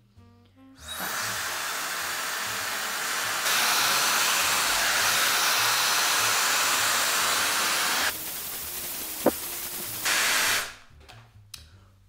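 Luxx Air Pro 2 hot-air styler with its smoothing brush attachment blowing hot air as it is drawn through hair, a steady rush of air. It starts about a second in, gets louder a few seconds later, dips and comes back up, then cuts off shortly before the end, with a brief click near the end.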